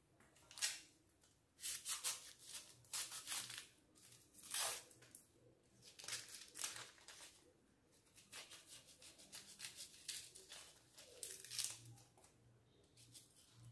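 Dry, papery skin of a red onion crinkling and tearing as it is peeled off with a knife, in a run of short, irregular rustles.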